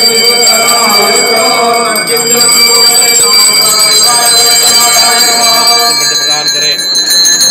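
Temple bells ringing steadily as part of the aarti, with a voice chanting beneath them.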